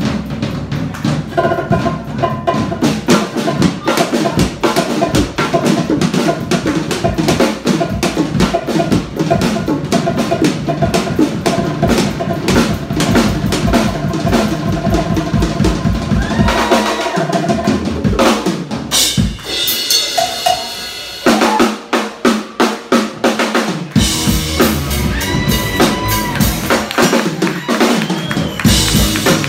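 Drum kit solo played live: fast snare and tom rolls over bass drum and cymbals. Past the middle the bass drum drops out for several seconds and the hits come more spaced, then the full kit comes back in.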